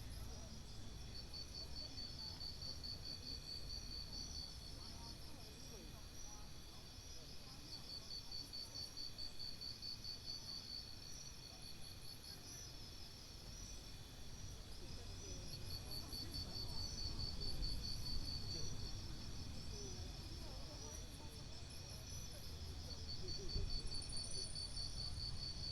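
Insects, crickets or similar, trilling outdoors: a pulsed trill comes in phrases of two to three seconds, repeating about every seven or eight seconds over a steady higher-pitched insect chorus, with a low rumble underneath.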